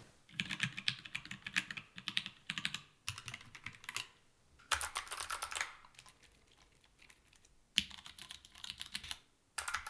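Typing on custom mechanical keyboards: five bursts of rapid key presses with short pauses between them.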